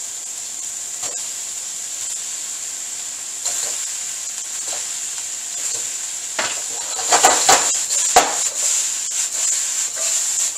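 Diced peppers and onion sizzling in a hot wok as fried chicken wings are added. Past the halfway point the wok is stirred and tossed, with a run of knocks and clatter over the steady sizzle.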